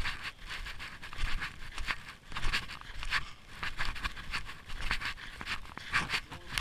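Snowshoe steps crunching in snow at a steady walking pace, about two a second.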